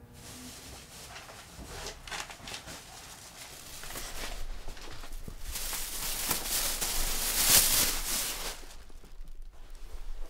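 Rustling and handling noise with small clicks, swelling to a louder rush about six seconds in and falling away near the end.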